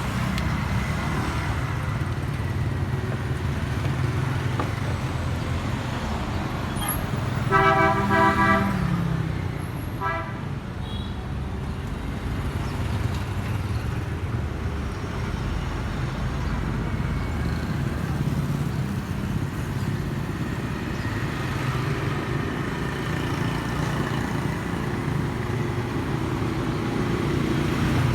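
Steady road-traffic rumble with a vehicle horn honking for about a second and a half, about eight seconds in, and a shorter toot a couple of seconds later.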